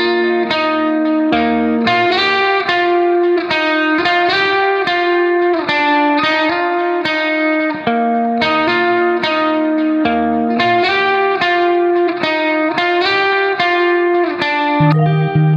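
Background instrumental music: a plucked guitar playing a quick, continuous run of notes.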